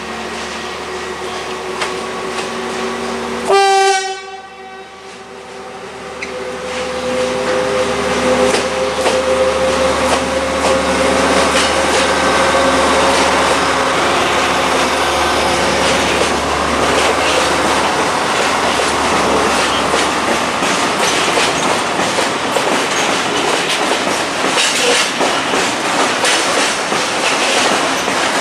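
A DB Cargo DE6400 diesel-electric locomotive passes with its engine running and gives one short horn blast about three and a half seconds in. A string of loaded coal hopper wagons then rolls past, growing louder, with wheels clattering over the rail joints.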